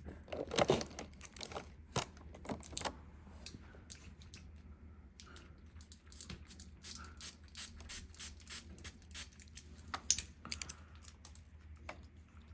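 Irregular small plastic clicks and rattles from handling a catnip spray bottle, working open its pump-spray top, with a couple of louder knocks near the start and about ten seconds in.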